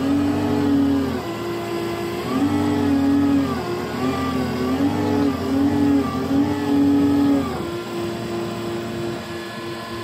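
Diesel engine of a tracked skid steer (compact track loader) running hard, its pitch dipping and recovering several times as it is loaded, then running steadier and a little quieter for the last couple of seconds.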